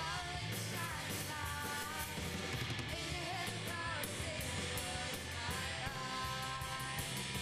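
Rock music with a steady drum beat, guitar and a sung melody.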